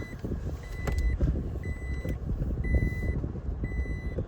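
Toyota Tacoma pickup's warning beeper sounding a steady high beep about once a second, each beep about half a second long, over the low rumble of the truck's running engine.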